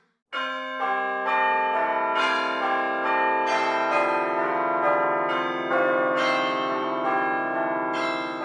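Bell-like chime music: a run of struck bell tones at changing pitches, about two a second, each ringing on and overlapping the next. It starts about a third of a second in.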